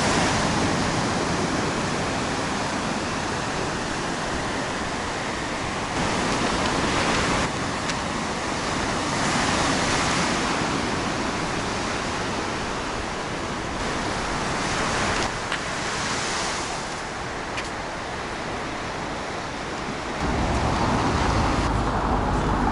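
Strong sea waves breaking and washing up the shore, the surf swelling every few seconds. About twenty seconds in it gives way to steady street traffic.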